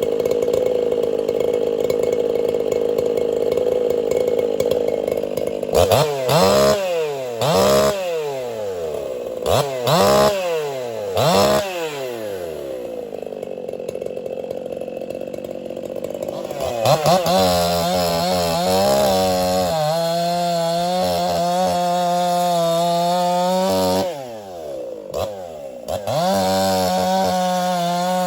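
Ported Echo CS-4910 two-stroke chainsaw running at high speed for several seconds, then revved up and down about five times and dropped back to a steady idle. A brief dip comes near the end, then the saw is revved again.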